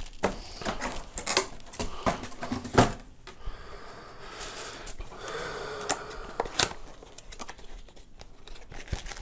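Cardboard packaging being handled on a desk: a quick run of taps and knocks, the loudest just before three seconds in, then softer rustling and scraping with occasional clicks.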